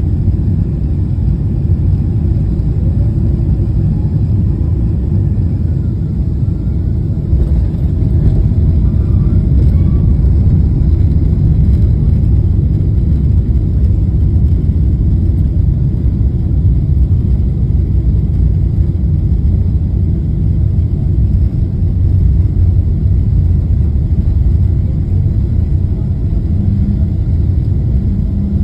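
Jet airliner's landing rollout heard from inside the cabin: a loud, steady low rumble of the engines in reverse thrust and the wheels on the runway.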